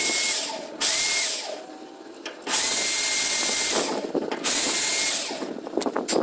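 Cordless drill-driver driving a screw into the steel gear rack of a sliding gate, its motor whining in four short runs, the longest about a second, with pauses between.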